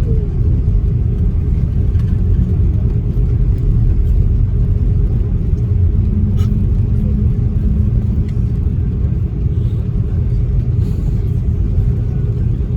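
Cabin noise of an Airbus A330-300 taxiing, with its Rolls-Royce Trent 700 engines at idle: a steady low rumble under a faint constant hum.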